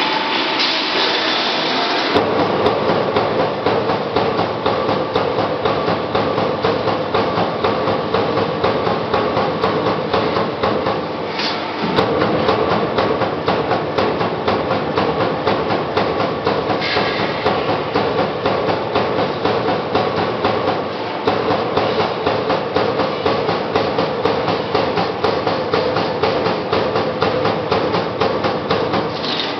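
CNC turret punch press punching holes and slots in a metal sheet: a fast, steady run of sharp punch strokes over the machine's running noise, starting about two seconds in.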